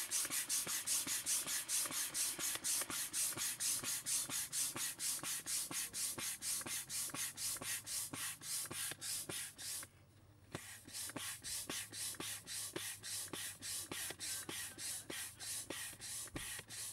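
Hand air pump worked fast to inflate the second chamber of an Intex Challenger K2 inflatable kayak: a quick, even rhythm of air puffs that breaks off briefly about ten seconds in, then carries on.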